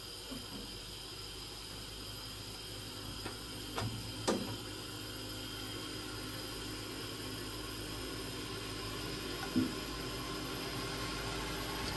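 Steady hiss of a gas burner on full flame under an empty frying pan, with two light knocks about four seconds in. Near the end, oil is poured into the heating pan.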